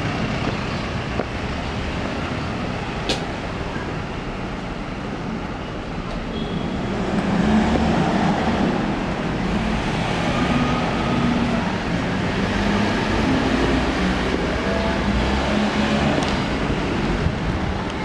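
Road traffic on a city street: vehicles running past in a steady wash of noise. It grows louder about seven seconds in as an engine's hum passes close and fades out near the end.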